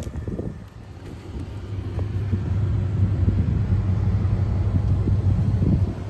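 York gas package unit's draft inducer and blower running with a steady low hum, getting louder about two seconds in as the access panel comes off.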